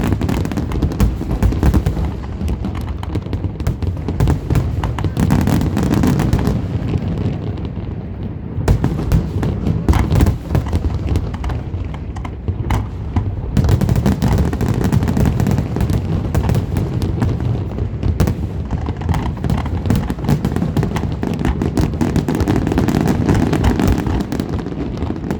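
Aerial fireworks display: a dense, continuous barrage of shell bursts, booms and crackling, many overlapping bangs with no pause.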